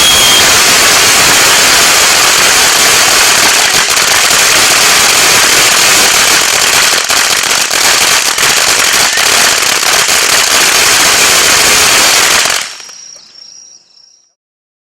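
Alamo Fireworks Diablo Fountain, a ground firework fountain, crackling loudly and densely, with a whistle falling in pitch that ends just after the start. About twelve and a half seconds in the crackle cuts off abruptly as the fountain burns out, leaving a faint tail that dies away.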